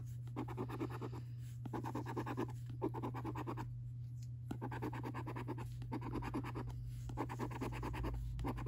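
A coin scratching the latex coating off the panels of a paper scratchcard: quick rasping back-and-forth strokes, in runs broken by short pauses as it moves from panel to panel.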